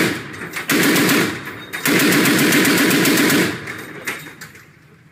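M2 Browning .50-calibre heavy machine gun firing in bursts of rapid automatic fire. A short burst comes about a second in, and a longer one of about a second and a half follows. The echo fades away near the end.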